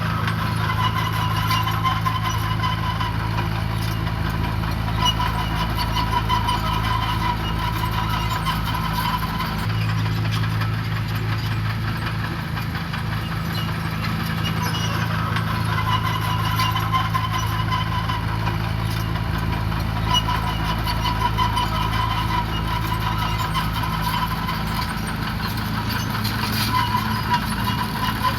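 Diesel engine of heavy road-building machinery running steadily, its low hum shifting about ten seconds in, with a higher whine that comes and goes.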